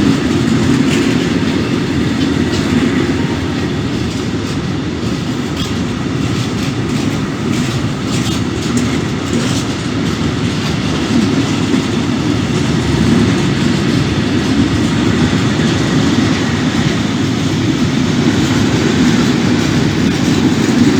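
A freight train rolling past at a steady speed: a continuous rumble of wagons, with wheel clicks over the rail joints.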